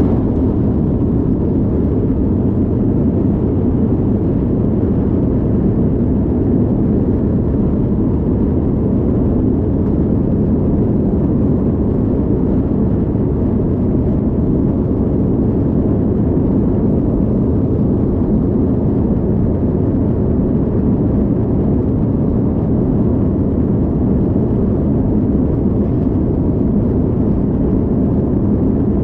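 Steady engine and airflow noise inside the cabin of an Airbus A330-200 airliner in flight, a low, even rush that does not change.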